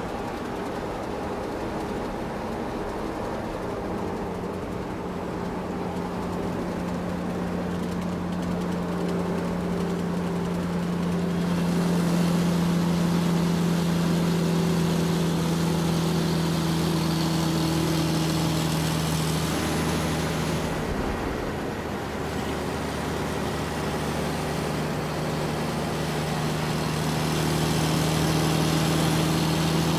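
Excavator's diesel engine running steadily. It grows louder about a third of the way in, eases off for a moment, then picks up again near the end, as with an excavator working under load.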